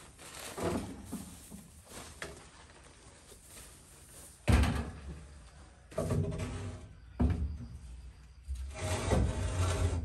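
Rusty sheet-metal stovepipe being handled and fitted into place: several sudden knocks and clatters of the metal pipe with scraping between them, the loudest about halfway through.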